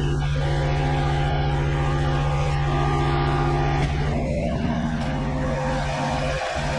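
Engine-driven pressure washer running steadily, its engine note under an even hiss of spray; the engine's pitch shifts slightly about four seconds in.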